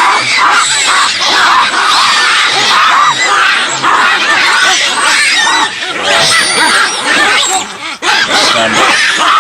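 Loud chorus of animals squealing and screeching, many high calls overlapping without a break, with a brief lull about eight seconds in.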